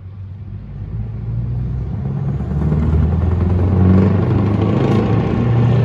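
Scania V8 truck engine with open exhaust pipes pulling away under throttle. It is a low rumble that grows louder over the first three seconds, then holds loud.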